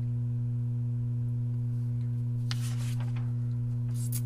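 Steady low electrical hum, with two brief rustles of paper, about two and a half seconds in and again near the end, as a sheet is slid into place.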